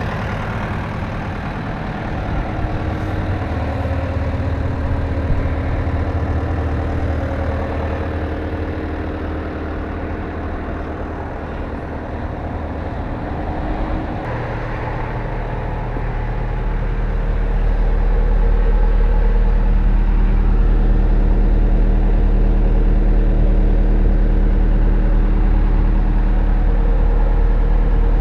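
CAT 289C compact track loader's diesel engine running steadily. About halfway through, the sound grows louder and deeper and holds there.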